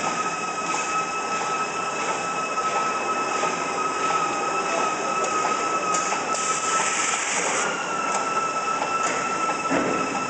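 Pocket tissue automatic packing machine running: steady mechanical clatter with a constant high whine. A brief hiss comes about six seconds in.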